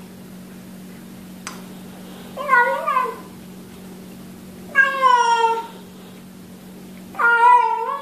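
Bengal kitten meowing three times while eating from its bowl, each call under a second with a bending pitch: the 'yum yum' noises some cats make over their food. A single sharp click about one and a half seconds in, over a steady low hum.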